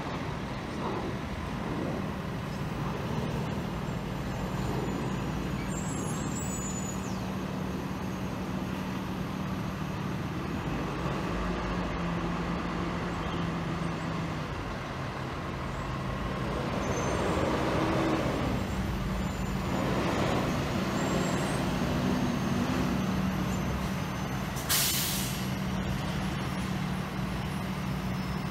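Box truck engine running with a steady low drone as the truck pulls up, louder for a few seconds midway. Near the end comes one short, sharp hiss of its air brakes as it stops.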